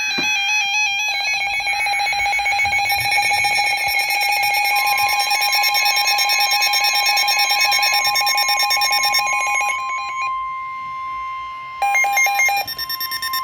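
Emergency weather alert tones between two warning broadcasts: a loud pulsing electronic alarm for about nine seconds. A steady single tone near 1 kHz joins about five seconds in and holds on past the end, and a second short burst of pulsing tones comes near the end.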